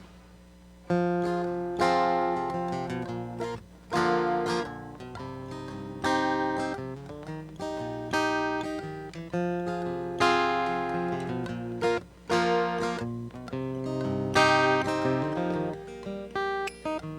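Acoustic guitar intro: chords strummed, starting about a second in, with a new chord struck roughly every two seconds.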